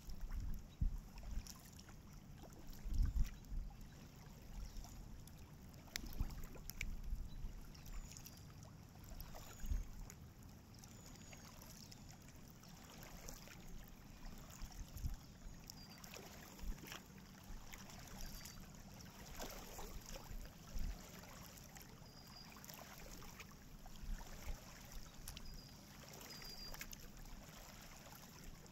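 Kayak paddling: water dripping and trickling off the paddle blades with light splashes at each stroke, and occasional low thumps.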